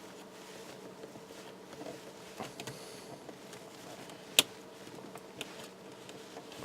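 A nail prying at the plastic hinge cover of a laptop screen, giving a few soft clicks and scrapes and one sharp click about four and a half seconds in, over a faint steady hum.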